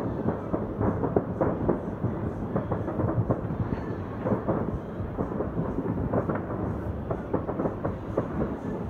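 Distant fireworks going off in many places at once: a continuous rumble of overlapping bangs and crackles.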